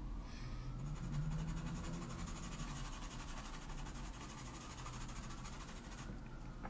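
Colored pencil scratching faintly and steadily on toned paper in repeated shading strokes, laying down dark pigment.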